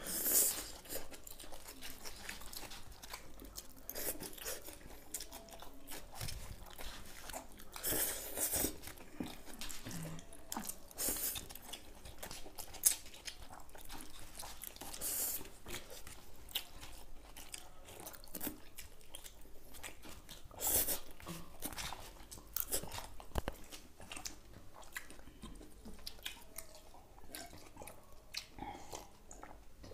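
Two people eating noodles with forks from foil plates: slurping and chewing in irregular bursts, with forks clicking and scraping on the foil.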